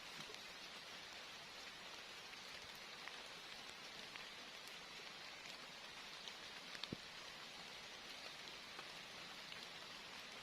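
Steady rain falling, with scattered drops ticking and one sharper tap about seven seconds in.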